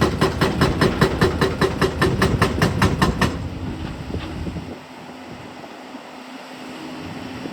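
Excavator-mounted hydraulic breaker hammering in a fast, even run of about five blows a second, stopping a little over three seconds in; the machine's engine then keeps running more quietly.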